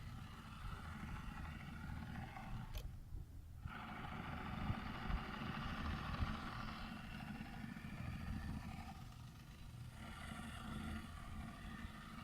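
The small motor of a radio-controlled model fishing boat running with a steady whine over a low rumble. The whine cuts out briefly about three seconds in, just after a click, then resumes.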